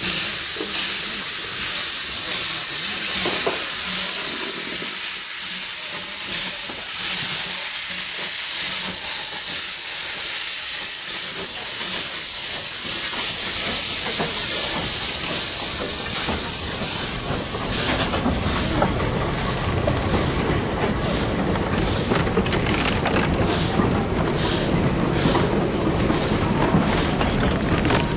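Steam hissing steadily from an LB&SCR A1X Terrier tank engine, No. W11, as it moves slowly along the platform. From a little past halfway its goods wagons roll by with a low rumble and regular clicks of wheels over rail joints, about one a second.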